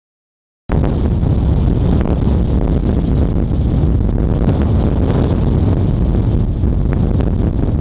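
Strong wind blowing across the microphone: a loud, steady rush heaviest in the bass, cutting in abruptly about a second in.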